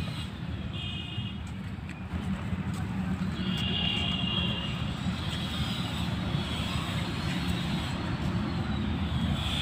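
Steady low outdoor rumble, with faint high-pitched whines about a second in and again around four seconds in.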